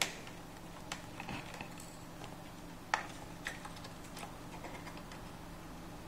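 Scattered light clicks and taps of a screwdriver and fingers on a laptop's plastic underside while the Wi-Fi card is disconnected, the sharpest about three seconds in. A faint steady hum lies underneath.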